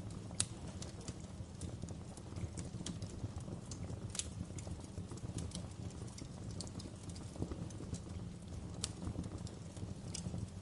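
Wood fire crackling: irregular sharp pops and snaps over a steady low rumble of burning logs. The loudest pop comes about half a second in.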